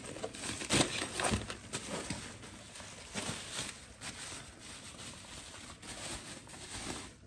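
Bubble wrap crinkling and rustling as a light is pulled out of its box and unwrapped by hand, with a few sharper crackles in the first couple of seconds and softer rustling after.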